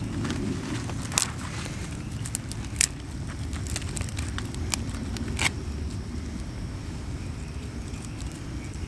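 Dry wood snapping and cracking in sharp, separate pops, the loudest about a second in, near three seconds and past five seconds, over a steady low rumble.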